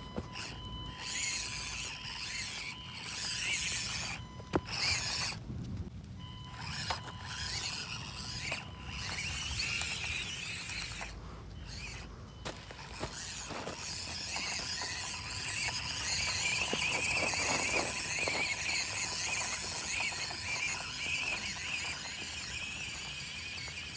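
Axial SCX24 micro RC crawler's small electric motor and gearbox whining high-pitched as it drives over gravel, with the whine cutting out briefly about five and eleven seconds in.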